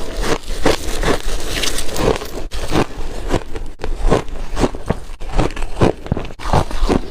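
A person biting and chewing chunks of refrozen shaved ice: a continuous run of sharp, irregular crunches, several a second.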